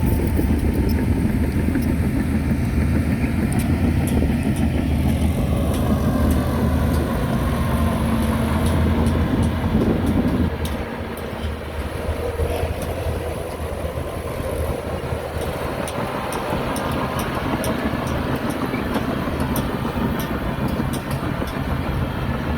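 Heavy diesel earthmoving machinery running under load with a deep, steady engine note. About ten seconds in the engine eases off and carries on running more quietly, with light metallic clanks over it.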